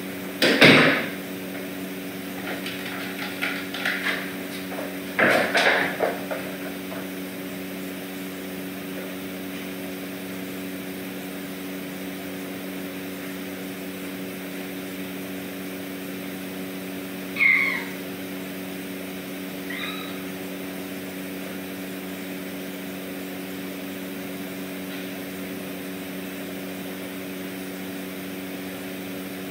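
A kitten meows once, briefly, over a steady low hum, with a fainter second call a couple of seconds later. A few short, loud noises come in the first six seconds.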